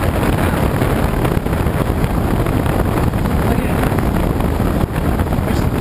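Steady rush of airflow over a glider in flight, heard inside the closed cockpit.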